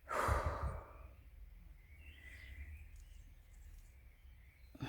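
Faint outdoor background with a short, faint bird call about two seconds in, after a brief rushing noise with low thumps at the start.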